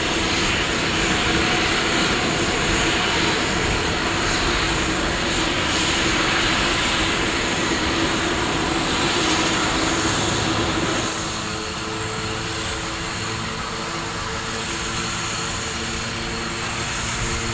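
Steam locomotives running, a steady roar of steam with a droning tone underneath. About eleven seconds in, the sound drops a little and settles into a lower steady hum with several held tones.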